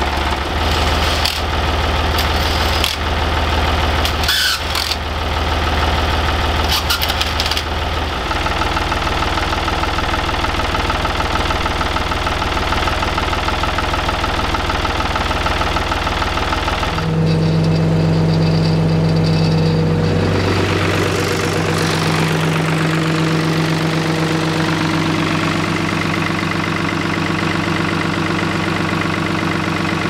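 Ford 555 backhoe's four-cylinder diesel engine running at idle, with a few knocks in the first several seconds. About halfway through, the engine's tone changes abruptly to a different steady note as the engine keeps running to warm up.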